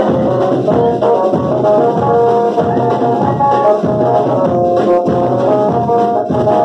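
Brass band music: brass instruments play a melody of held notes over a steady drum beat.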